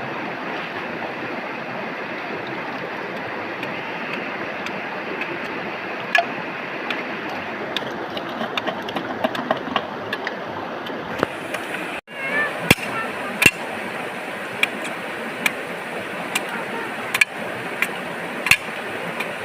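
Steady rush of flowing water with scattered small clicks and knocks. The sound drops out for an instant about twelve seconds in, then resumes.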